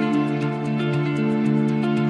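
Soft new-age background music with sustained notes and a light, regular beat.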